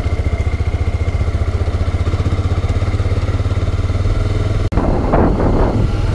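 Motorcycle engine running steadily under way, a pulsing low rumble. About four and a half seconds in, the sound breaks off for an instant and the engine comes back a little louder.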